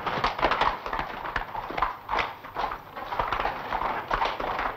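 Horses' hooves clopping in an irregular run of strikes, several a second.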